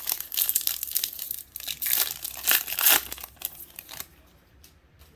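The wrapper of a Topps baseball card pack being torn open and crumpled, a dense crinkling and crackling that stops about four seconds in.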